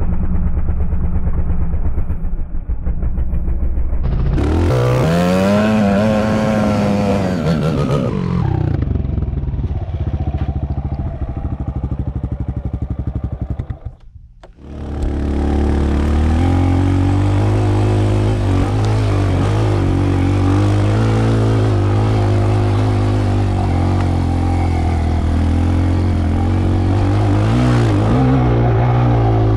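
Dirt bike engine running: it revs up and back down about five seconds in, cuts out briefly around the middle, then runs steadily.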